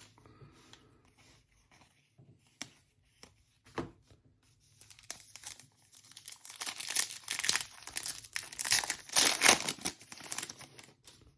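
Plastic trading-card pack wrapper crinkling and being torn open. There are faint scattered rustles and clicks at first, then a dense spell of tearing and crinkling in the second half.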